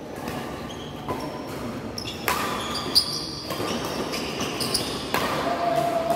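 Badminton doubles rally in a large hall: sharp racket hits on the shuttlecock, the loudest about three seconds in, with brief high squeaks of shoes on the court floor.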